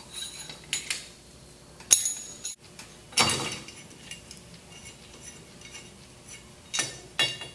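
Sharp metal clinks and clanks of hand tools and bolts against the steel head of a pneumatic chemical injection pump as it is taken apart: a few scattered knocks, the loudest a little over three seconds in with a short ring, and two quick ones near the end.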